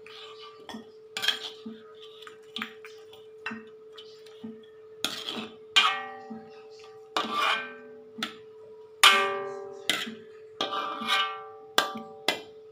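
Metal ladle knocking and scraping against a wok as boiled chicken pieces are scooped out of the broth, a dozen or so irregular knocks, the louder ones ringing briefly. A steady hum runs underneath.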